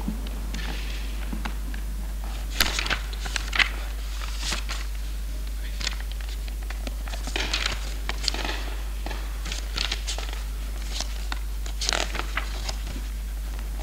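Quiet room tone with a steady low hum, and scattered soft rustles, clicks and footsteps as people shift and one walks past.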